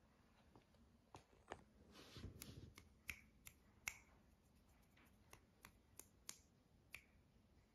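Sharp, quiet clicks, about a dozen scattered irregularly over several seconds, with a brief rustle about two seconds in.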